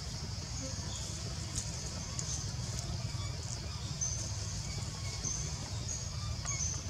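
Outdoor ambience: short, thin, high-pitched chirps or squeaks repeating irregularly over a steady low rumble.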